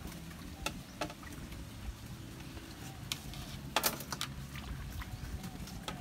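A steady low motor hum, with a few sharp clicks and taps: two in the first second, one about three seconds in, and a quick double click near four seconds.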